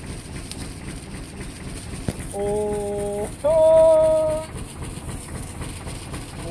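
Men's voices calling out together in a drawn-out two-note chant, a lower held note and then a higher, louder one, like a heave call timing a push on a stuck car. A single knock comes just before the calls.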